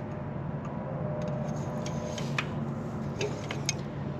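Light, sharp metal clicks and taps as the oil dipstick on a Ford Powermaster 841 tractor engine is handled while the oil level is checked, over a steady low hum.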